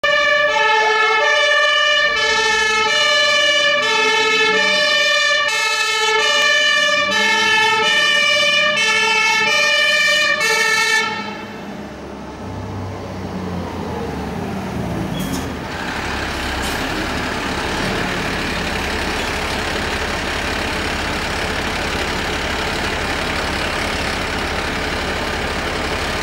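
Fire engine's two-tone siren sounding in alternating high and low tones, switched off about eleven seconds in. After that the truck's engine runs on with road noise as it drives up and passes.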